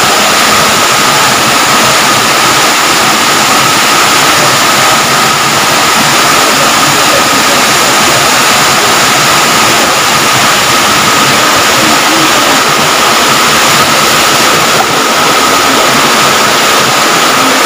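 Muddy floodwater rushing and cascading over a drop in a torrent after heavy rain, a loud steady noise that does not let up, with a thin steady high tone running through it.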